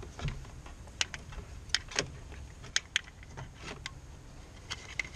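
Scattered sharp clicks and light rattles, about eight in all, as an old, dried-out fuel-injection wiring harness and its plastic fittings are worked loose by hand.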